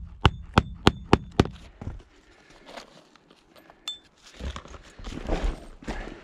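A magnetic roofing hatchet driving roofing nails through asphalt shingles: five quick strikes about a third of a second apart, then a single strike about four seconds in. Scuffing and rustling on the shingles follow.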